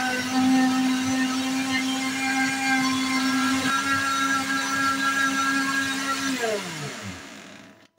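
Electric blender running steadily, blending onion, ginger, lemon juice, cinnamon and honey into a cough syrup. About six seconds in it is switched off, and its whine falls in pitch as the motor spins down.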